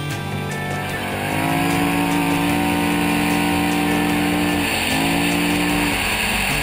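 Kawasaki KFX700 ATV's V-twin engine held at high revs on a fast run. Its pitch climbs about a second in, then holds steady, with a brief dip near five seconds before it picks straight back up. Steady wind and tyre rush run underneath.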